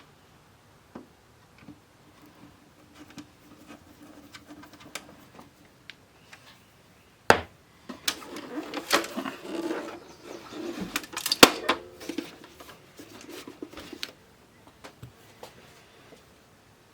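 Hands working on plastic electronics: scattered clicks and knocks, one sharp loud click about seven seconds in, then several seconds of busier rattling and scraping.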